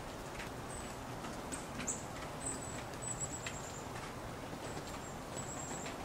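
Small songbirds giving thin, very high calls: several short notes and one longer, slightly falling call about three seconds in, with a few faint light ticks over a steady background hiss.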